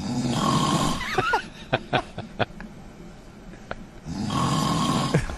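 A man snoring loudly in his sleep: two long, rough snores about four seconds apart, each carrying a steady high note.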